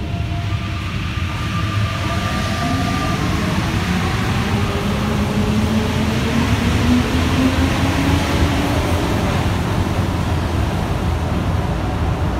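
Alstom NS-93 rubber-tyred metro train heard from inside the car while running: a steady rolling rumble, with the electric traction motors' whine slowly rising in pitch as the train picks up speed.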